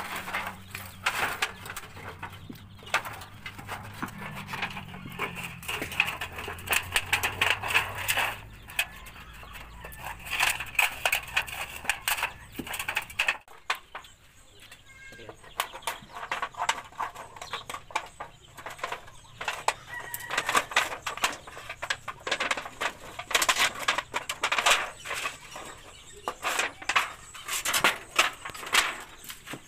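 Scissors cutting a rusty galvanized iron sheet: repeated sharp snips and clicks as the sheet is cut and shifted. Chickens cluck and a rooster crows in the background.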